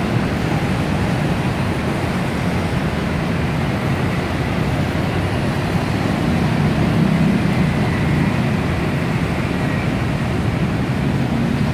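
Steady roar of city street traffic mixed with the running of a BTS Skytrain on its elevated concrete viaduct.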